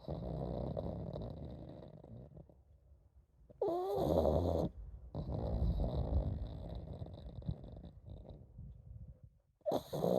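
A pug snoring: long rattling breaths through the nose and throat, with a louder snort carrying a wavering whistle about four seconds in and another near the end.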